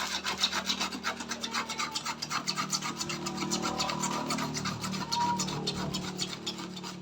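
A knife blade pressed against a plastic drain-pipe fitting and scraped quickly back and forth, several strokes a second, shaving down a rough, too-tight spot so that the pipe will go in.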